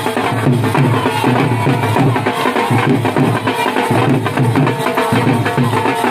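Dhol drum played in a fast, steady dance rhythm, about four strokes a second.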